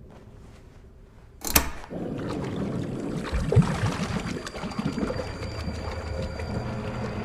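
A sudden loud bang about one and a half seconds in, then a dense rumbling din with a few low thuds.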